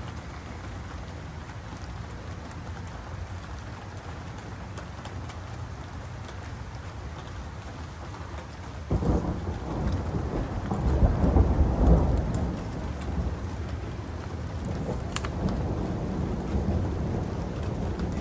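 Thunderstorm: steady rain hiss, then about nine seconds in thunder breaks out suddenly and rolls as a deep rumble. It is loudest a couple of seconds later, then rumbles on more quietly under the rain.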